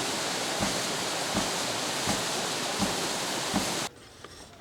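Rushing water with a regular knock about every 0.7 s, the beat of a hydraulic ram pump's waste valve slamming shut as it pumps water uphill. The sound stops abruptly near the end.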